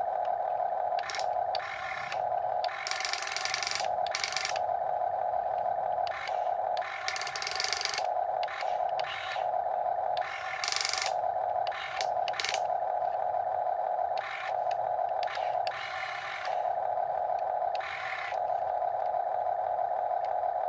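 Electric motors and gearboxes of a Huina 1/14-scale RC excavator whining as it works, a steady mid-pitched whine that briefly drops out now and then, with several short bursts of a harsher, higher gear noise as other functions kick in.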